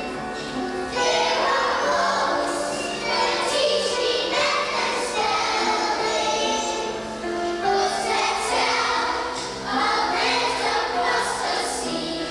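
A group of young children singing together in chorus over instrumental accompaniment.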